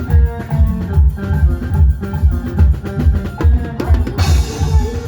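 Music with a steady, heavy bass-drum beat under a melody, and a cymbal crash about four seconds in.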